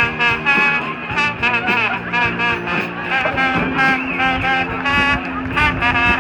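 High school marching band playing a brass melody over a held low note, with drums keeping the beat.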